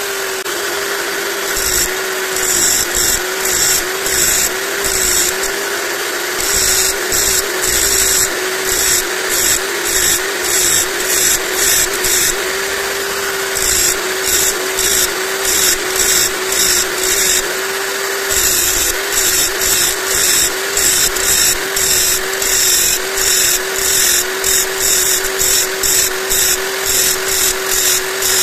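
Electric drill running steadily with a small abrasive wheel in its chuck, giving a constant motor whine, as a high-carbon steel hacksaw blade is pressed against the wheel again and again to grind deeper notches between its teeth: short spells of metal grinding about twice a second.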